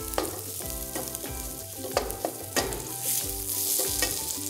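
Chorizo, onion and sweet peppers sizzling in a stainless steel skillet while a wooden spatula stirs them, scraping and knocking against the pan several times.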